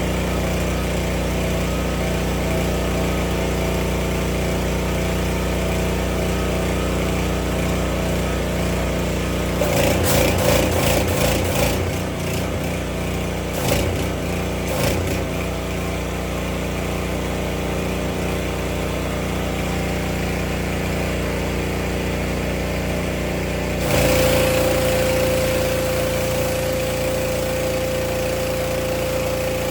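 Small gas engine of a pressure washer running steadily, with a rough, irregular stretch about ten seconds in and a sudden change about three-quarters of the way through to a louder sound with a steady whine.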